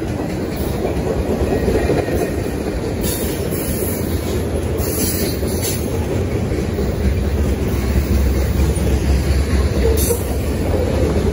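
Freight train's tank cars and covered hopper cars rolling past, a steady rumble of steel wheels on the rails.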